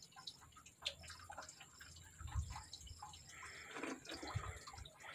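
Faint trickling and dripping of pond water spilling over the rim of a plastic bucket into the water inside, let in a little at a time, with a couple of soft low thumps.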